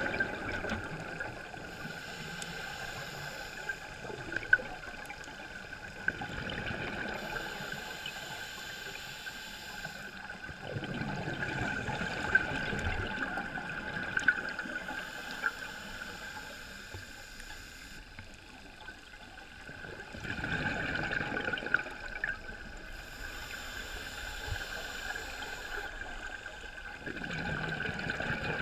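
Scuba diver breathing through a regulator underwater: a hiss on each inhale alternating with a rumble of exhaled bubbles, one breath about every seven to eight seconds, over a steady high whine.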